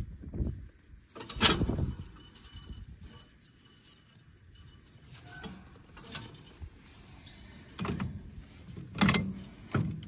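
Metal parts of a square baler's twine knotter being worked by hand: a few sharp clanks and clicks, the loudest about a second and a half in and near the end, with quiet scraping of twine and straw between them.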